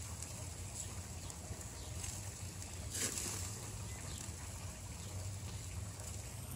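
Ribeye steaks sizzling on a gas grill, a steady hiss over a low rumble, with scattered crackles from fat dripping onto the flames and one louder pop about three seconds in.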